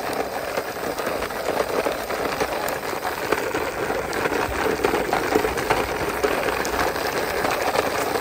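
Plastic wheels of a toy jeep rolling over rough brick and concrete paving as it is pushed by hand: a steady rattling noise with many small clicks.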